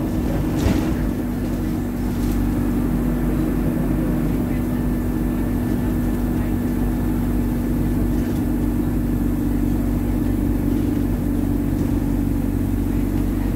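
Alexander Dennis Enviro200 single-decker bus running in service, its engine a steady drone. A couple of sharp rattles come in the first few seconds, from a bus called an absolute rattlebox.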